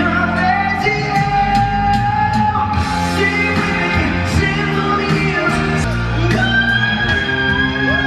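Live rock band with a singer, guitar, bass and drums, the vocalist holding long notes over a steady beat, echoing in a large hall.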